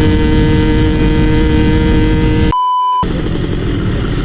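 Two-stroke motorcycle engine running loudly with steady droning tones. About two and a half seconds in it is cut by a short single-pitch beep, then the engine is heard running again, rougher.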